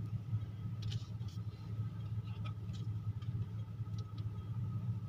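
Steady low drone of a car heard from inside the cabin, with a few faint ticks.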